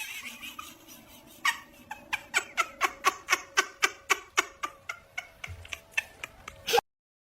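A cat making a quick run of short clicking calls, about five a second, that stops abruptly.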